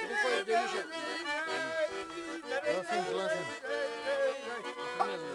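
Accordion playing a melody.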